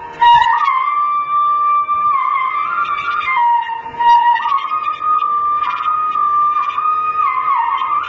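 Solo flute playing a slow melody as background music: long held notes stepping up and down, with slides between them.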